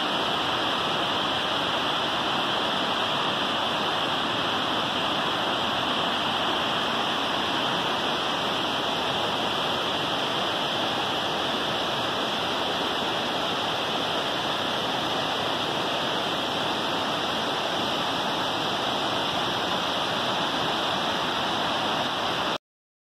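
Rocky creek rushing over rapids and small cascades: a steady, even rush of water that cuts off suddenly near the end.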